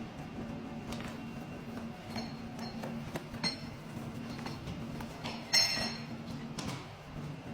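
Metal tools clinking and tapping during paintless dent repair: scattered light clicks, with one louder ringing clink about five and a half seconds in, over a steady low hum.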